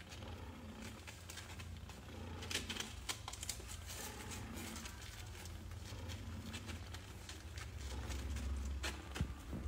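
Nursing kittens suckling and shifting against their mother in a cloth-lined cardboard box: many soft irregular clicks, ticks and rustles over a low steady rumble.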